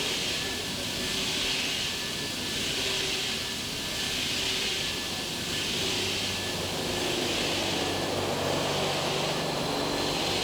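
CNC milling machine cutting a forged C450 steel gas compressor blade with a Walter Blaxx milling cutter, coolant spraying: a steady hissing machining noise that swells and fades about every one and a half seconds.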